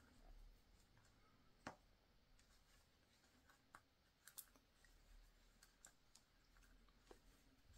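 Near silence, with a few faint, irregular clicks from hand crocheting: the metal crochet hook working single crochet stitches into chenille yarn.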